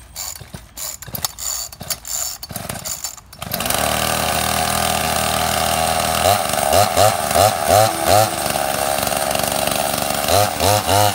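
Two-stroke chainsaw engine on a motorized bicycle being pull-started: a few seconds of rough pulls and clatter, then it catches about three and a half seconds in and runs steadily. From about six seconds it revs up in a string of short throttle blips, and again near the end.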